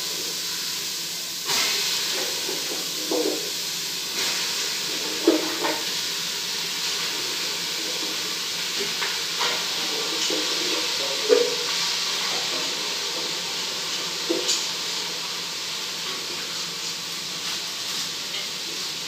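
Steady hiss of cut vegetables steaming in a steel pot over a wood fire, with a few light knocks of utensils against the pot.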